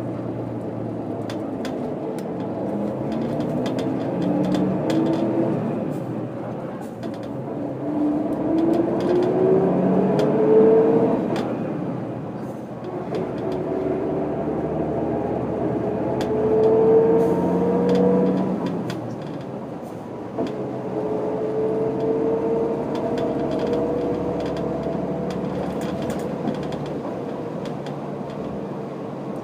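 1996 Setra 315 UL bus's diesel engine heard from inside the bus as it pulls away and accelerates through the gears of its manual gearbox. The engine pitch rises in each gear and drops at the shifts, about 6, 12 and 20 seconds in, then climbs slowly and steadily in the last gear.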